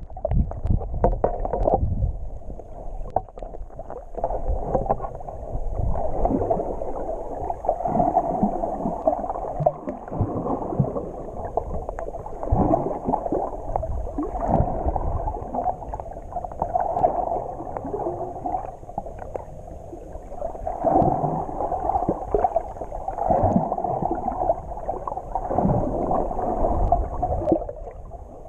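Muffled underwater water noise picked up by an action camera in its waterproof housing: low rushing and sloshing that swells and fades irregularly every second or two as the swimmer moves through the water.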